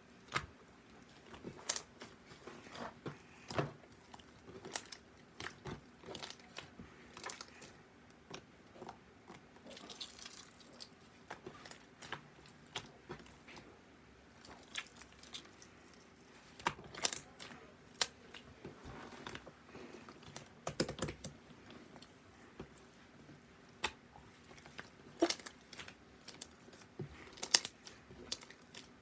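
Slime being squeezed and worked by hand, giving irregular small clicks, pops and crackles a few times a second.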